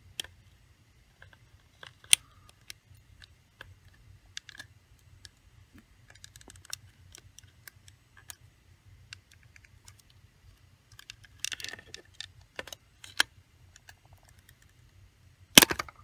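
Plastic rivets of an HP 20s calculator snapping as the case is pried apart with fingernail clippers, amid small clicks and scrapes of plastic being handled. The sharpest snaps come about two seconds in and just before the end, as the frame comes free.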